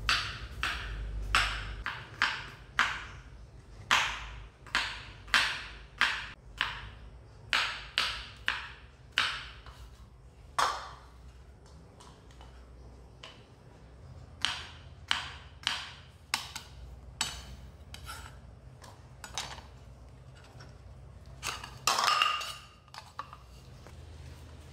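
A kitchen knife knocking on a round wooden cutting board as shallots are cut: a string of sharp, irregular taps, one or two a second, with a pause partway through and a louder, ringing clatter near the end.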